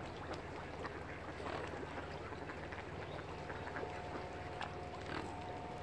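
Mallard ducks quacking in short repeated calls over a steady low hum. A held steady tone joins a little past halfway.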